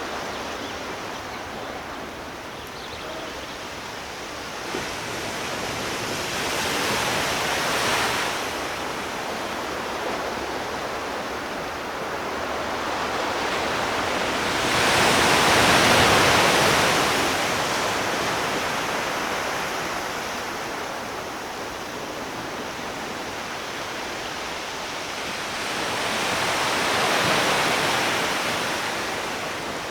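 Sea waves washing onto a shore: a steady hiss of surf that swells three times, roughly every ten seconds, the loudest surge near the middle.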